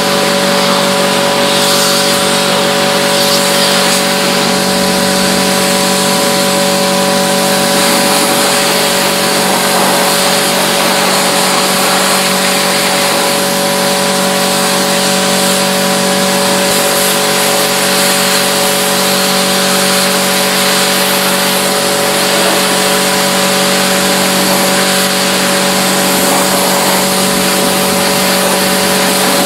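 A machine motor running steadily, with fixed humming tones over a constant loud hiss and no change in speed.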